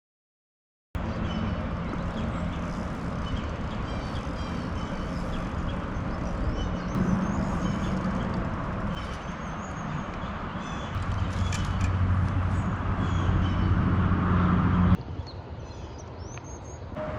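Outdoor recording of a steady motor hum under a noisy rush, with birds chirping. The sound cuts abruptly about fifteen seconds in to a quieter scene where birds go on chirping.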